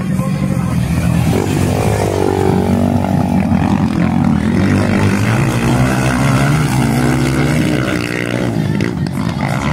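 Honda XR 250 Tornado dirt bikes racing past, their single-cylinder four-stroke engines revving, the pitch rising and falling again and again as the riders work the throttle.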